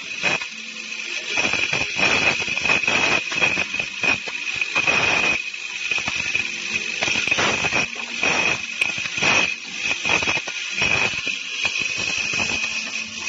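Automatic drilling, tapping and milling machine running while cutting metal: a steady high whine with irregular bursts of harsh noise.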